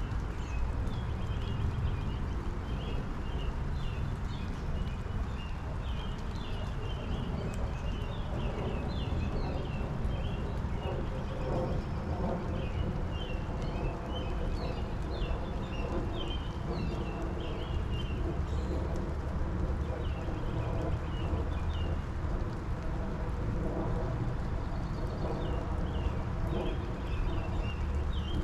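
Steady spring rain shower falling. Over it, a small bird twitters in several bursts of rapid chirps.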